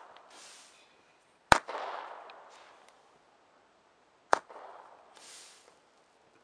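Shots from a six-shot fountain cake firework: two sharp bangs about three seconds apart, each trailing off into a second or so of hissing. A hiss from the previous shot is still fading as it begins.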